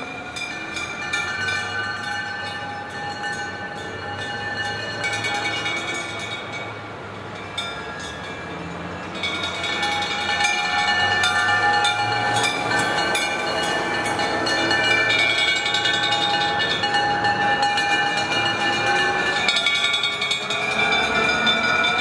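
A column of preserved vintage fire engines passing, their alarm bells ringing continuously with rapid repeated strikes over the engines, getting louder about ten seconds in as the engines come close. A siren wails up and down near the end.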